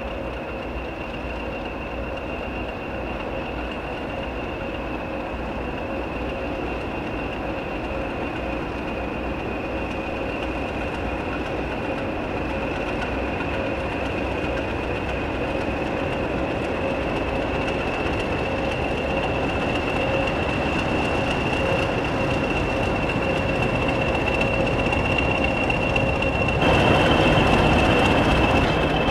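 Diesel locomotive-hauled train running, growing slowly louder, with a high steady whine over the rumble. Near the end it abruptly gets louder for a couple of seconds.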